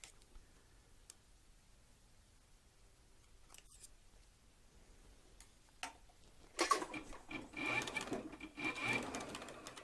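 A few faint clicks, then about six and a half seconds in a Cowboy CB4500 triple-feed heavy-duty sewing machine runs for about three seconds, a rapid stitching clatter with a steady motor whine, sewing through leather.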